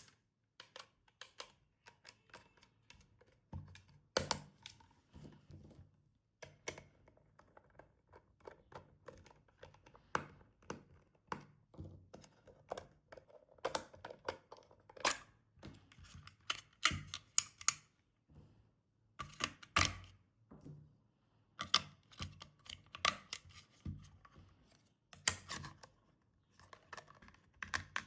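Irregular clicks and light taps of a toy car and its packaging being handled during unboxing.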